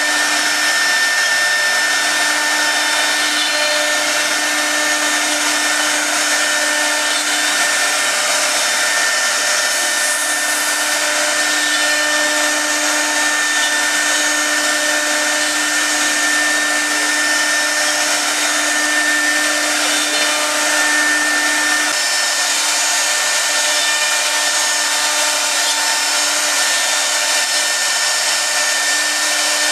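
Multi-spindle CNC wood carving router cutting a wave pattern into a board. Several high-speed router spindles run with a steady whine over the hiss of the bits cutting, and the tone shifts slightly about two-thirds of the way through.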